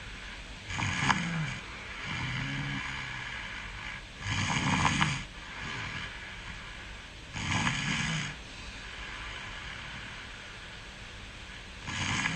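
A person snoring in their sleep: four snores about three seconds apart, the first two each followed by a softer breath, with a longer pause before the last snore.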